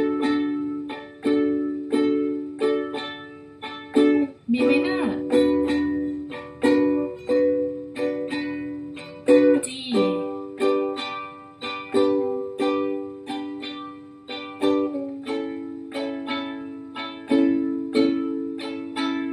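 Ukulele strummed in a steady down-up-up-down pattern, running once through the four-chord progression D, B minor, G and A. Each chord is held about five seconds, with changes about four, ten and fifteen seconds in.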